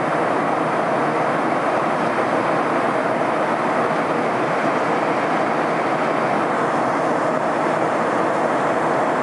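Steady rushing cabin noise of an airliner in flight, engine and airflow noise heard from inside the cabin, unchanging throughout.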